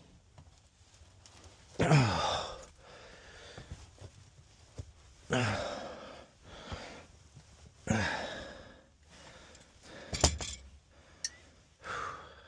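A person's voice: three loud, breathy sighs a few seconds apart, each falling in pitch, then a sharp click near the end.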